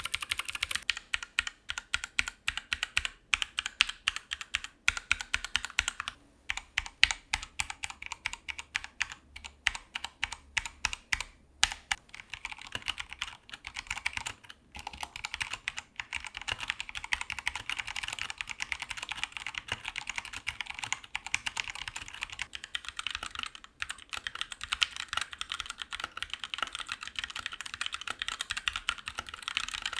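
Typing on a Keychron wireless mechanical keyboard with Gateron switches: a run of sharp keystroke clicks. About twelve seconds in the sound changes abruptly to faster, denser typing.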